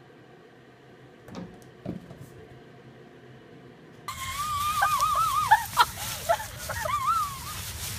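Two soft taps against near quiet, then, about four seconds in, a loud dry rustle of leaves as a small dog bounds through a leaf pile. High, wavering chirps rise and fall over the rustling.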